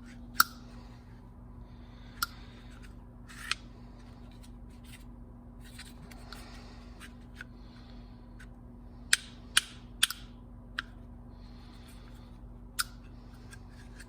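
Hard-plastic hose pinch-off clamps being squeezed shut and their locks snapped, giving about eight sharp clicks spread out unevenly, with soft handling rustles in between and a faint steady hum underneath.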